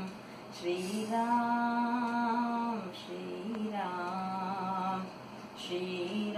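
A woman singing a Hindu devotional bhajan to Rama solo, holding a long sustained note for about two seconds, then singing a shorter phrase and starting another near the end.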